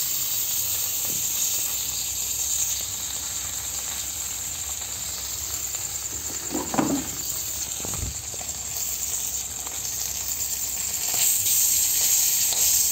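Fish frying in hot oil in a kadai: a steady sizzling hiss, with a short louder bump near the middle.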